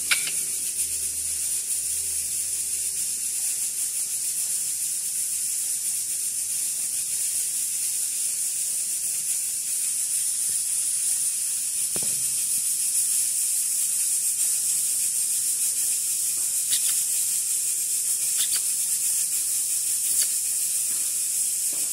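A steady high-pitched hiss that does not change, with a few faint clicks in the second half.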